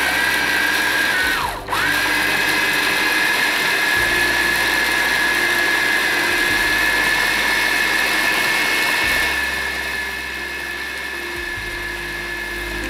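Anex electric food processor running, its motor giving a steady high whine as it chops green chillies, coriander leaves and fried brown onion. It stops for a moment about a second and a half in and starts again, then runs on, a little quieter from about nine seconds in.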